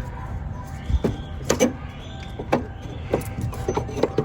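Sharp clicks and knocks from hands and tools working on parts in a car's engine bay, a few times over a steady low rumble.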